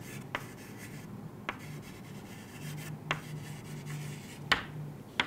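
Chalk writing on a chalkboard: faint scratching strokes, broken by a handful of light, sharp taps of the chalk on the board.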